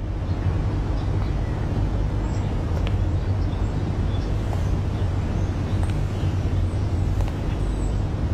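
Steady low rumble of motor-vehicle noise, with faint scattered ticks and short chirps above it.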